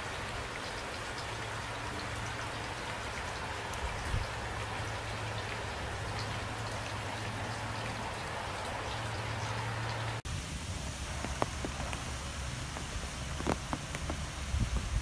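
Heavy rain falling, a steady even hiss. About ten seconds in it cuts abruptly to a different rain recording, with less hiss, a deeper steady noise underneath and scattered sharp taps of drops.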